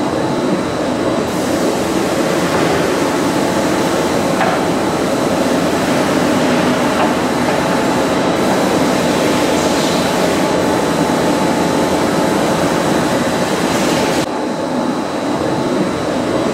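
Barrel sanding machine running: a steady, loud whirring noise with a faint high whine over it. The hiss in the upper range fades about fourteen seconds in.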